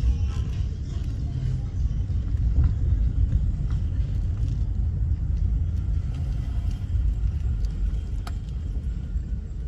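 Low, steady rumble of a car driving, engine and road noise heard from inside the cabin.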